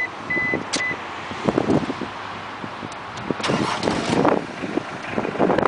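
Mitsubishi Pajero's 2.5-litre turbo diesel engine being started with the key: a dashboard warning beep sounds twice near the start, then the engine cranks and catches, running unevenly.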